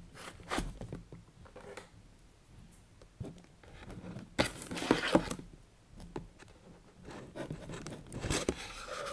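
Cardboard box being handled on a cutting mat while a knife blade slits the packing tape along its seams: irregular scraping and tearing, with a loud rasping burst about halfway through and another near the end.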